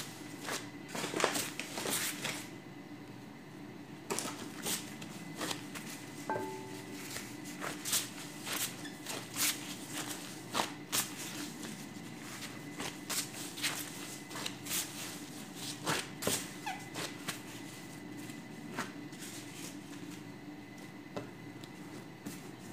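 Bread dough being kneaded by hand on a countertop: irregular soft slaps and pats, about one or two a second, with the crinkle of a plastic glove, over a faint steady hum.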